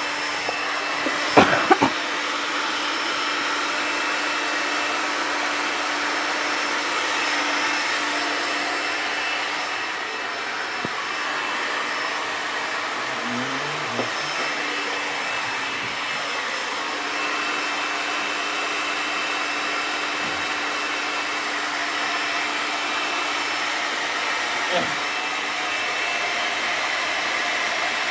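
Hair dryer running steadily, a constant rush of air with a hum and a high whine. There are a few sharp knocks about a second in and a single knock near the end.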